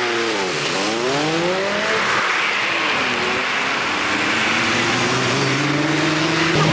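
Street traffic played back sped up: vehicle engines whose pitch falls and then climbs again about half a second in, with another engine pitch rising steadily through the second half over a haze of road noise.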